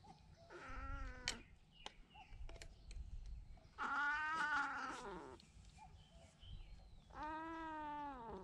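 Domestic cat giving three drawn-out, pained yowls, the middle one the loudest, as ointment is put on its injured front paw: the skin of the carpal pad is torn off, so the medicine stings.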